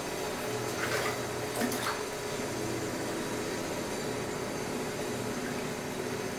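Construction-site machinery running with a steady hum and din, with a couple of short knocks or clanks about one and two seconds in.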